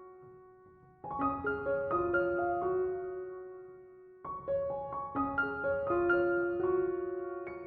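Soft background piano music: gentle phrases of single notes that fade out. The music dips almost to silence just before the phrases that start about a second in and again about four seconds in.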